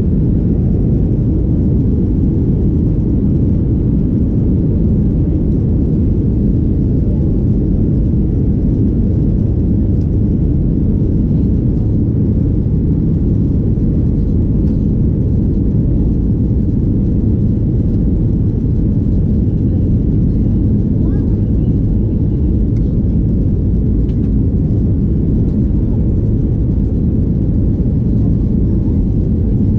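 Steady low rumble inside the cabin of a Boeing 737-800 taxiing, its CFM56 engines at low thrust. The level stays even with no build-up, so the take-off roll has not begun.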